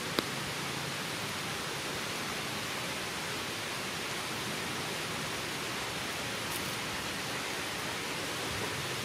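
Steady, even hiss of outdoor background noise, with one sharp click shortly after the start.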